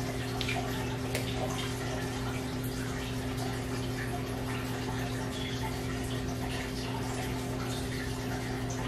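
Steady background hum and hiss of room tone, with a few faint knocks.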